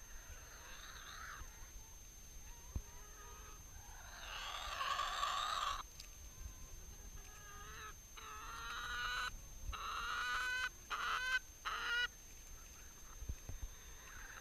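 Chickens clucking and calling: a harsh squawk about four seconds in, then a run of drawn-out, wavering calls between about eight and twelve seconds.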